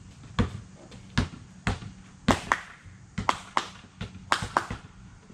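Basketball being dribbled on pavement: about ten sharp bounces at an uneven pace, roughly two a second.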